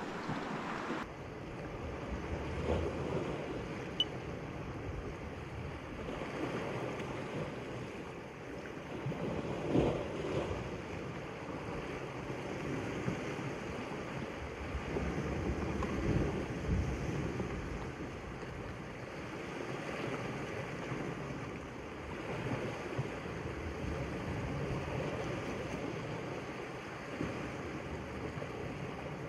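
Sea surf washing against a rocky shore, swelling and ebbing every few seconds, with wind on the microphone. A single short click about four seconds in.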